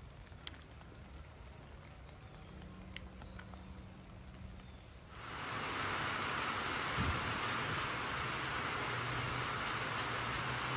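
Rain: faint scattered drips at first, then about five seconds in a much louder, steady hiss of rain sets in, with a few low thuds.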